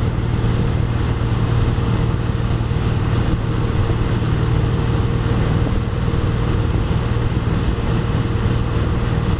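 Motorboat engine running steadily at towing speed, with wind and rushing water from the wake over it.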